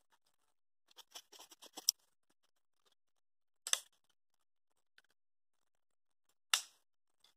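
Dry twigs crackling and snapping in a freshly lit campfire: a quick run of small crackles about a second in, then two single sharp snaps.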